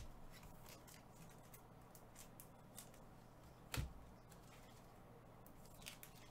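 Mostly near silence with faint scattered clicks of cards and packs being handled. About four seconds in comes a single soft thud as a trading-card pack is set down on the table mat.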